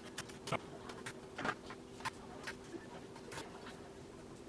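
Scattered light clicks, about two a second at irregular intervals, over a faint steady hum.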